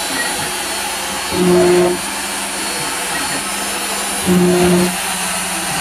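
CNC router engraving wood, its handheld trim-router spindle running with a steady whirring hiss. About every three seconds the machine gives a short, low hum that lasts about half a second, twice here.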